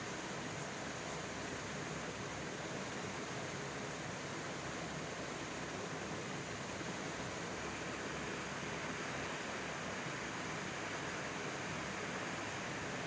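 Floodwater rushing steadily, an even unbroken hiss of water.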